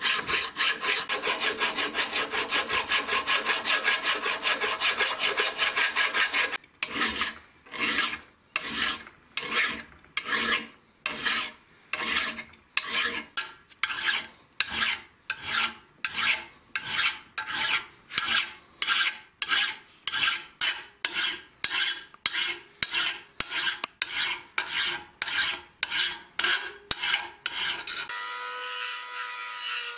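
Flat hand file rasping back and forth across a metal vise part: quick, close-set strokes at first, then about six seconds in, slower separate strokes about two a second. Near the end the filing stops and a small rotary tool's steady high whine takes over.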